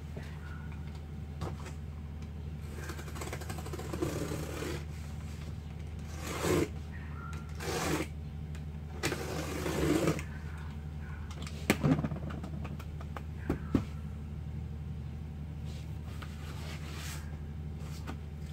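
Cardboard being handled, rustled and scraped in short strokes, with a few sharp clicks, over a steady low hum.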